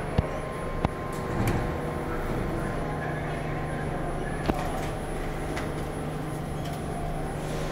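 R46 subway train standing at the platform: a steady low hum from the stopped cars, broken by a few sharp clicks and knocks.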